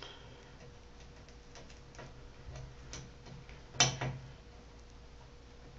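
Scattered light clicks and taps of small hardware being handled at a Moen shower valve as the cartridge's retaining clip is fitted, with one sharper click about four seconds in.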